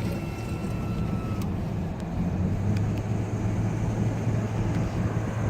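2000 Ford Ranger's 3.0L V6 engine running with a steady low hum. A thin high tone sounds for the first second and a half and cuts off abruptly, and a few faint clicks come later.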